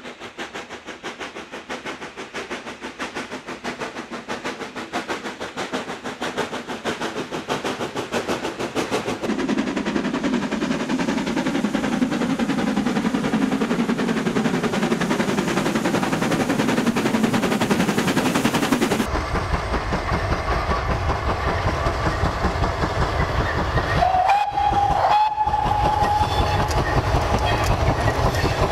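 Heavy freight steam locomotive working hard, with rapid, evenly spaced exhaust beats. The sound changes abruptly partway through, and a steady whistle blows for about three seconds late on.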